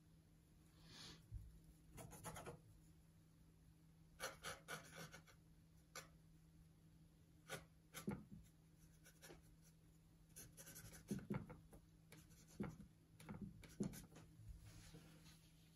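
Oil-paint brush strokes scraping and dabbing across a painting panel: a dozen or so short, faint, irregularly spaced strokes, with a faint steady low hum underneath.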